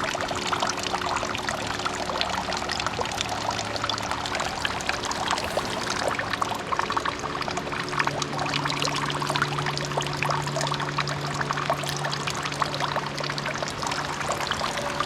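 Water of Nachi Falls pouring and splashing, a steady dense hiss of falling water.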